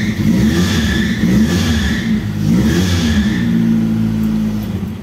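Chevrolet Corsa pickup engine revved twice, with a high squeal rising and falling with the revs, then settling to idle. The mechanic puts the squeal down to a slipping accessory drive belt, most often the alternator belt, worn or not tensioned enough.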